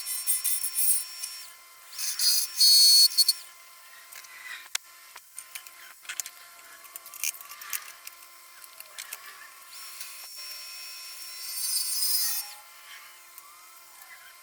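High-pitched whine and grinding of woodworking tools cutting wood, sped up in time-lapse. It comes in several loud bursts, the loudest about two to three seconds in and another near the end.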